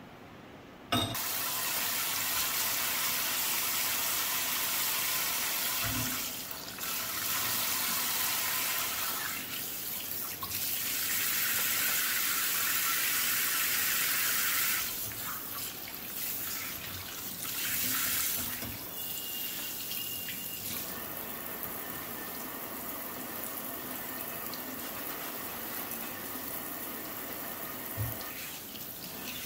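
Kitchen faucet running in spray mode into a stainless steel sink while dishes are rinsed by hand under it. The water comes on suddenly about a second in, and the splashing grows louder and softer as the dishes move through the spray, with a couple of light knocks of a dish.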